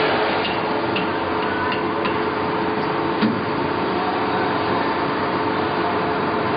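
Straight knife blade grinder running with its cup-wheel grinding head: a steady machine hum with a constant tone under even noise. A few sharp clicks come in the first three seconds.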